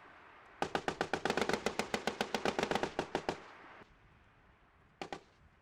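Automatic machine-gun fire: a long burst of rapid shots, about ten a second, lasting roughly three seconds, then a short burst of a few shots near the end.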